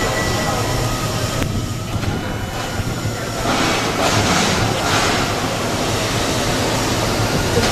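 Steady rail-vehicle or heavy-machinery noise of a locomotive works: a dense, even rumble with a faint steady whine over it.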